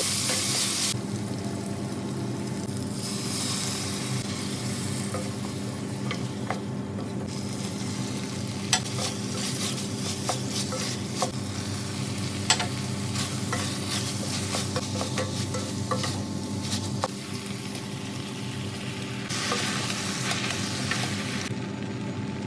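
Stir-fry sizzling in a hot pan while it is stirred, with the utensil clicking against the pan now and then, over a steady hum.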